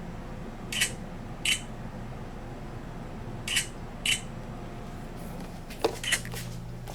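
Camera shutter clicking four times, in two pairs about two seconds apart, over a steady low hum. A few quicker clicks and knocks come near the end.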